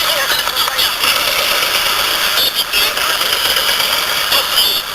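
A weak distant station on a Siete Mares multiband radio receiver, mostly steady static and hiss with a faint, garbled voice buried underneath.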